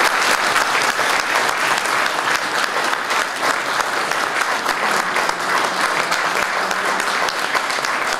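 Audience applauding: steady, dense clapping that holds at an even level.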